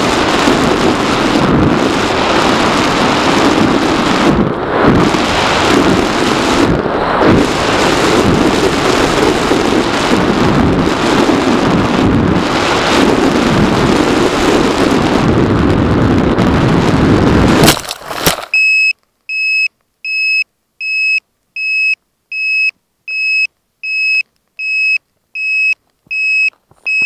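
Airflow rushing over the on-board camera of a Bixler 2 RC plane in flight, which ends in a crash into the grass about 18 seconds in and then cuts to near silence. After the crash an electronic beeper sounds a steady high beep about one and a half times a second.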